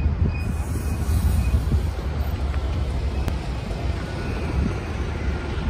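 Dublin Bus double-decker bus driving past close by, its engine a steady low rumble amid city traffic.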